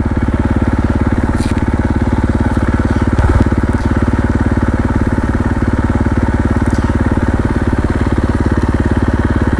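The single-cylinder four-stroke engine of a KTM 450 XCF dirt bike running at a steady, even beat with no revving.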